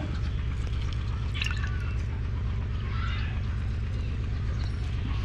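Lime juice dripping and trickling into water in a glass pitcher as lime pieces are squeezed by hand, over a steady low mechanical hum like a motor running.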